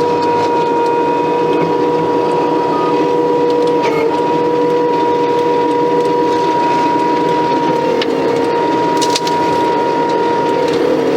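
Case skid steer running hard with a stump grinder attachment, a steady mechanical drone with a constant high whine, heard from inside the cab. A few sharp knocks and clicks break through, the strongest cluster about nine seconds in.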